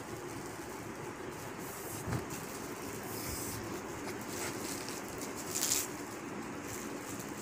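Cotton suit fabric being handled and spread out, giving a few brief rustles, the loudest about five and a half seconds in, over a steady background hum.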